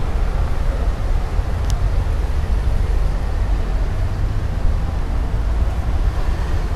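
City street noise: a steady low rumble of road traffic, with no voices.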